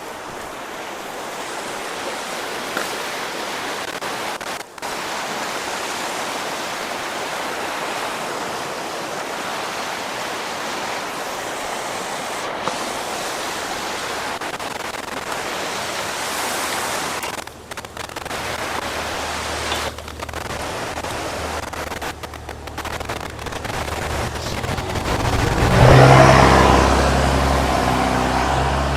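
Fast floodwater rushing through a creek culvert in a steady, loud noise. Near the end a low hum with several pitch lines swells in and stays on, louder than the water.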